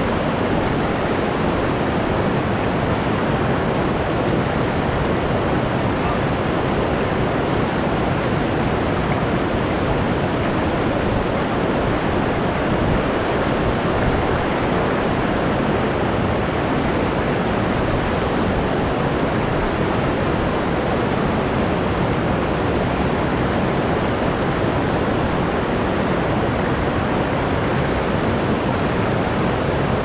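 Waterfall's steady rush of falling water, an even roar with no breaks.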